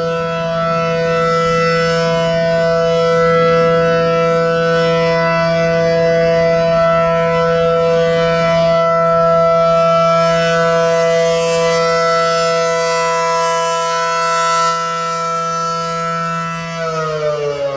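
ACA Allertor 125 rotating siren sounding a loud, steady two-note alert chord for a siren test, swelling and fading slightly as it sweeps around. Near the end its pitch starts falling as the siren begins to wind down.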